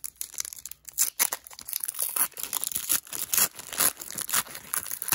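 Foil wrapper of a Pokémon trading card booster pack being torn open and crinkled in the hands: a dense run of irregular, sharp crackles and rustles.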